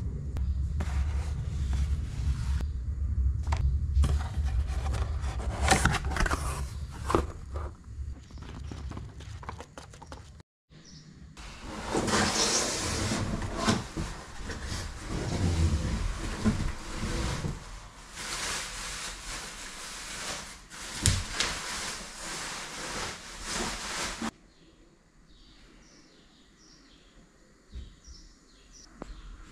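Rustling and scraping of cardboard and plastic packaging as a new bike is unpacked from its shipping box. A low rumble comes with the handling in the first part, and the rustling is loudest in the middle. Near the end it drops much quieter, with short faint high chirps.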